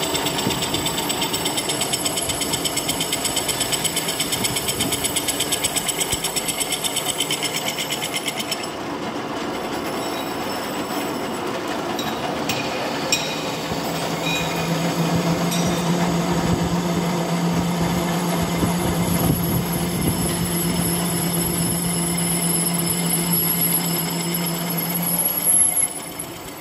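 Belt-driven metal lathe running while a single-point tool cuts a metal disc, a fast even chatter for the first eight or nine seconds. The cut then stops, a few sharp metallic clicks from the carriage and handwheels follow, and the lathe runs on with a steady hum until it drops away near the end.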